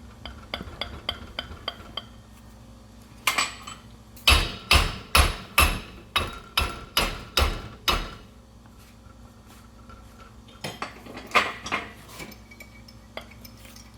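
Hammer striking steel on a seized 1940s Wilton bullet vise to drive out the deadlocked screw. A few light taps come first, then about ten hard, ringing blows roughly two a second, then a few more strikes near the end.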